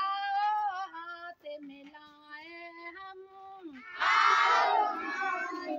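A woman sings a line of a children's action song in long held notes, then about four seconds in a group of young children sing the line back together, louder.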